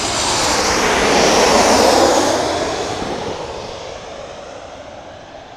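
Boeing 737-800 jet airliner on approach flying past, its CFM56 turbofan engines swelling to a loud peak about two seconds in, then fading away.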